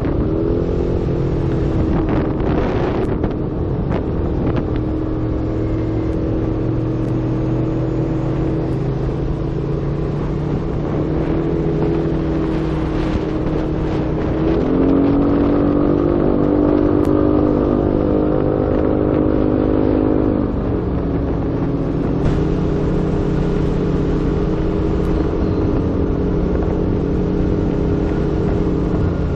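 SYM Jet 180i scooter's air-cooled single-cylinder engine running under way, its note holding steady, stepping up about halfway through, dropping back, then rising again.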